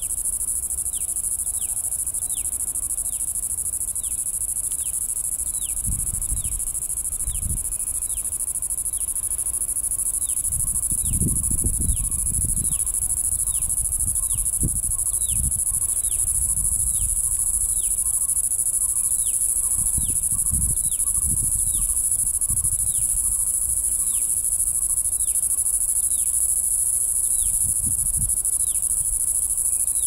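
Steady, high-pitched insect drone with a short falling chirp repeating about once a second over it. Low rumbles on the microphone come and go several times.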